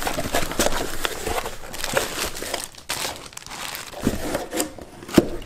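A cardboard shipping box being opened by hand: the flaps rustle and the plastic bag inside crinkles, with irregular sharp crackles. The loudest of these is a single sharp click near the end.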